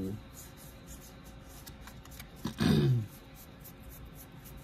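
Paper trading cards sliding and rubbing against each other as a hand flips through them, a soft scratchy rustle, with one short voice-like sound falling in pitch about two and a half seconds in.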